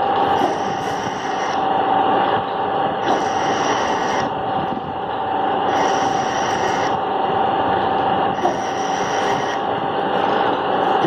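A machine tool cutting a heavy crankshaft: a continuous metal-cutting noise with a steady ringing tone, and a harsher, scraping layer that swells and fades about every two and a half seconds as the cut comes and goes.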